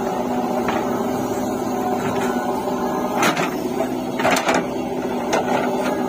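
JCB 3DX backhoe loader's diesel engine running steadily under hydraulic load while the backhoe dumps soil and swings back to dig, with a few sharp metallic clanks from the bucket and boom in the middle.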